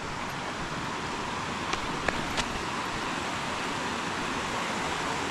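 Steady rush of creek water spilling over rocks into rock pools, with a few faint clicks about two seconds in.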